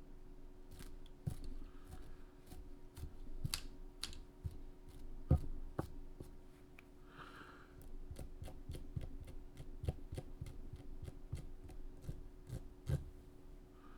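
Irregular small clicks and scratches from fly-tying tools working a finished fly in the vise, likely a dubbing comb or scissors on the fibres. A couple of sharper clicks stand out, over a faint steady hum.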